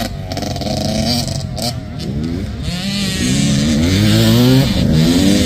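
85cc two-stroke motocross bike engines revving hard, the pitch climbing and dropping again and again through the gears, getting louder from about halfway in.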